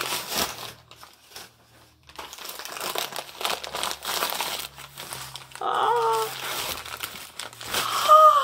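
Wrapping paper crinkling and rustling in irregular bursts as a packed gift item is unwrapped by hand. A brief voiced 'ooh' comes partway through, and a loud exclamation of surprise comes at the very end.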